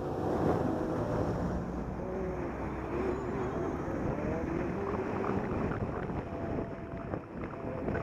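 Wind rushing over a bicycle-mounted camera's microphone while riding, with traffic noise underneath and a few light knocks near the end.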